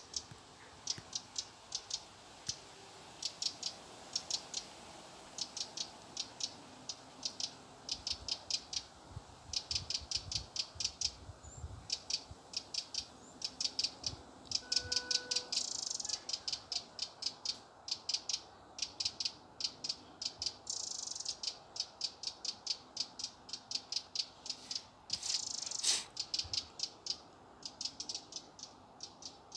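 Wren calling near its nest: short rattles of quick, dry, high ticks, repeated every second or so.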